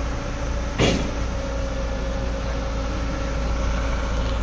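Hyundai crawler excavator's engine running steadily under load as it climbs onto a flatbed truck, with a single loud knock about a second in.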